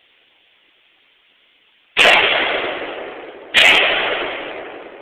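AK-47 rifle (7.62×39 mm) fired as two single shots about a second and a half apart, the first about two seconds in. Each crack trails off in a long fading echo.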